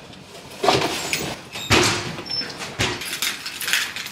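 Cardboard parcels being pulled out of a metal parcel locker and set down on the floor: several separate scrapes and knocks of boxes against the metal compartment.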